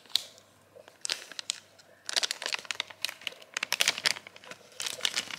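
Clear plastic bag crinkling as a TV remote is slid out of it: a few scattered crackles at first, then dense, rapid crinkling from about two seconds in.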